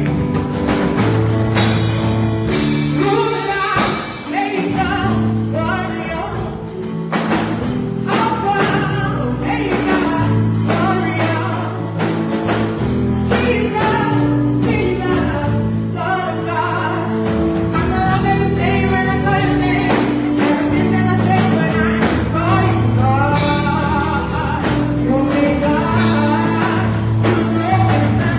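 Gospel music with singing, a keyboard and bass holding chords beneath the voices.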